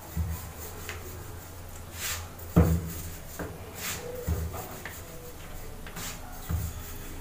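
Wooden rolling pin rolling out atta dough on a wooden board: a low rumble as it rolls, and several wooden knocks as it is set down and lifted, the loudest about two and a half seconds in.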